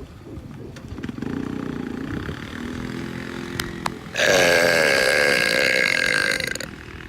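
A man burping on purpose: a long, low, drawn-out burp. About four seconds in, a much louder, shrill sound breaks in and cuts off shortly before the end.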